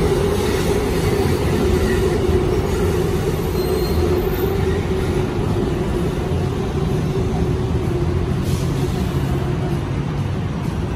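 Elevated Bangkok BTS Skytrain running on the viaduct overhead: a steady hum that slowly fades near the end, over broad city noise.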